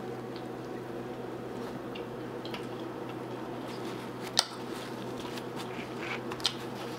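Close-up mouth sounds of someone chewing a bite of burger: scattered soft, wet clicks and squishes, one sharper click a little after halfway. A steady background hum runs underneath.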